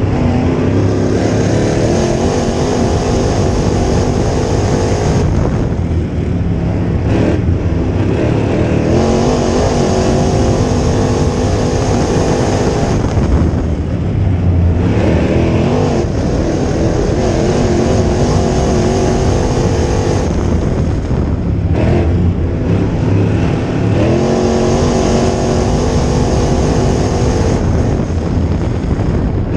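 Crate late model dirt-track race car's V8 engine at racing speed, heard from inside the car. The engine note climbs in pitch under throttle, then drops away briefly every seven or eight seconds as the driver lifts for the turns on each lap.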